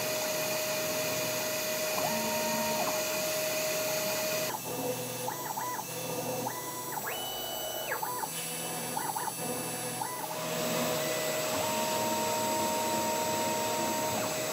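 CNC router drilling the hole patterns for drawer slides: the spindle runs with a steady whine and hiss while the axis stepper motors sing short flat tones that step up and back down with each move. In the middle the spindle noise drops away for several seconds and a quick run of short stepper moves plays, before the spindle whine returns.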